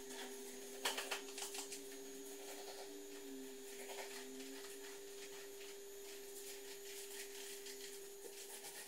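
Paint roller being worked over a white plastered counter: faint, soft rolling strokes, with a few light knocks about a second in, over a steady electrical hum.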